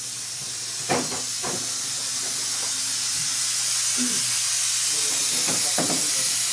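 A loud, steady hiss that slowly grows louder, with a few faint brief sounds under it.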